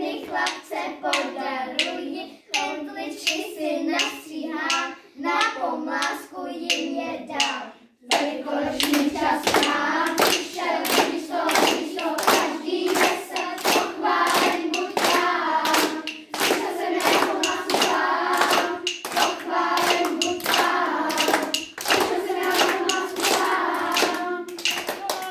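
A group of children singing a song together while clapping their hands to a steady beat. The singing and clapping break off briefly about eight seconds in, then start again.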